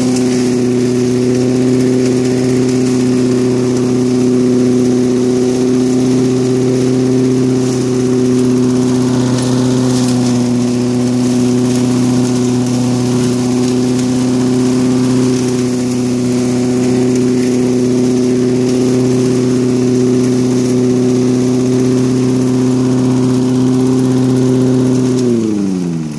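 Push lawnmower's small engine running steadily at full speed, spinning a fan impeller in place of the blade, with a rush of air blowing from its chute. Near the end the engine is cut and its pitch falls as it winds down.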